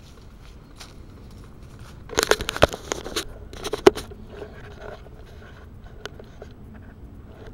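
Rustling and crackling handling noise close to the microphone. It lasts about two seconds near the middle and ends in a sharp knock, with a few faint ticks afterwards.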